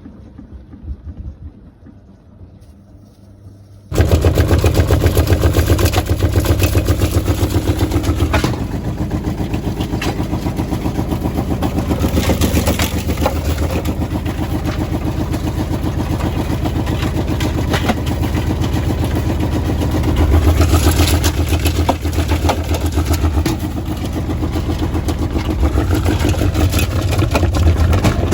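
Washing machine with its door open, loaded with towels, starting up suddenly about four seconds in and then running loud and fast with a rapid, even pulsing from the turning drum.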